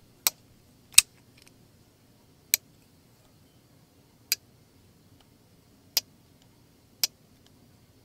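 Titanium frame-lock flipper knife (Kubey Anteater) being flipped open and snapped shut, giving six sharp metallic clicks about one to two seconds apart as the blade locks open and as the strong detent ball drops into its hole on closing. The pivot and detent are freshly oiled.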